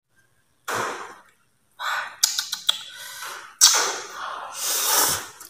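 Slurping vermicelli noodles: three noisy, breathy slurps, the last and longest starting about halfway through, with a few sharp clicks in between.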